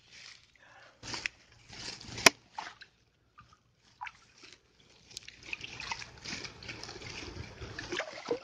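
Shallow reedy pond water splashing and dripping as it is stirred by hand, with a single sharp click about two seconds in; from about five seconds in the sloshing and trickling become more continuous.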